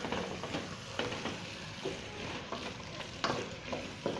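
Spoon stirring a thick chicken and potato pie filling in a stainless steel pot, scraping and knocking irregularly against the pot, over a low sizzle from the cooking filling.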